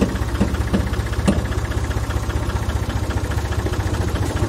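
Massey Ferguson 255 tractor's diesel engine running with a steady, even chug. A few sharp clunks in the first second and a half.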